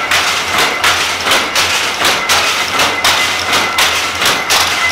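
Mechanical shuttle-driven shaft loom (dobby loom) running at speed: rapid, regular clacking of the shuttle being thrown and the batten beating up the weft, about four knocks a second over a steady low hum.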